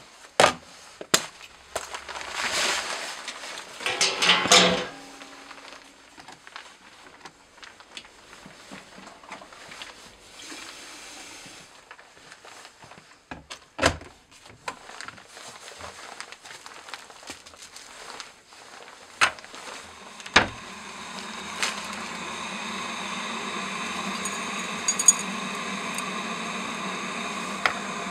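Sharp kitchen clicks and knocks with a short clattering burst about four seconds in. About twenty seconds in a click is followed by a stainless-steel electric kettle starting to heat: a steady hiss and hum that slowly grows louder.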